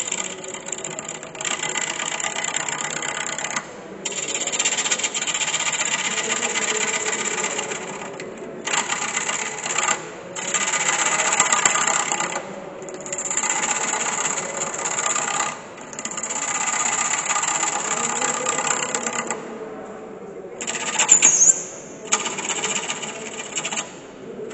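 Gouge cutting a spinning wooden blank on a wood lathe: a rasping hiss of shavings coming off in passes of a few seconds, with short breaks between them as the tool is eased off and brought back.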